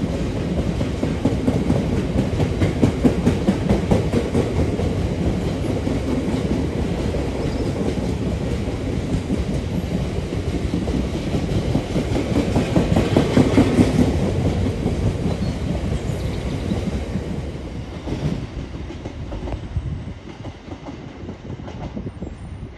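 VTG bogie tank wagons of a freight train rolling past, a steady rumble and clatter of steel wheels over the rails, fading away over the last few seconds as the tail of the train pulls into the distance.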